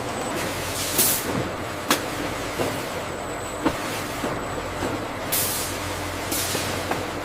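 Machinery running with a steady low hum, two short hisses of air and a few sharp clicks.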